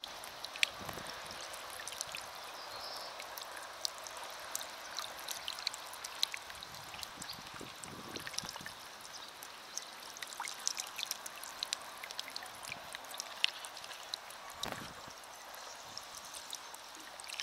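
Water jet of a small floating solar fountain pump splashing back into a glazed ceramic fountain bowl: a steady trickling patter of many droplets. There are a couple of soft low thumps about halfway and near the end.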